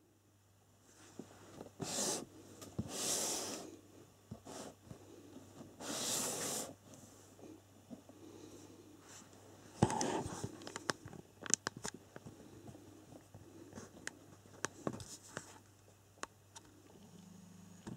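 Cardboard box of a Maverick Atom RC truck being handled and turned: several brief rustling, brushing noises, then a run of small clicks and scrapes, over a faint steady low hum.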